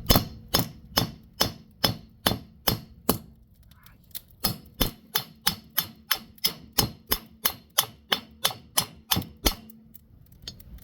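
Hammer blows on a piece of metal on an anvil, a steady run of sharp strikes about two to three a second. They pause for about a second and a half some three seconds in, resume, then stop shortly before the end.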